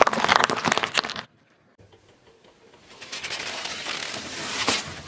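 Car tyre rolling over pickles on asphalt, crushing them with a dense crackling crunch that cuts off about a second in. After a short hush, a crinkling hiss builds and rises as a tyre presses down on a balloon filled with water beads, peaking near the end.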